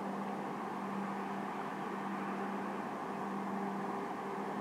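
A steady mechanical hum with a constant low drone that drops out briefly now and then, over an even background hiss.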